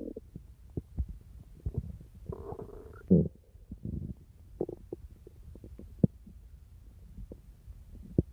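Human stomach growling: irregular short gurgles and pops, with a longer gurgling rumble about two to three seconds in that ends in a loud pop, and sharp pops around six seconds and near the end.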